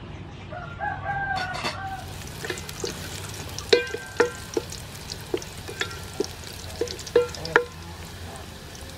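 Chopped garlic frying in soybean oil, sizzling steadily while a wooden ladle stirs it in an aluminium pot. From about halfway through, the ladle strikes the pot rim about ten times, each knock ringing briefly off the metal.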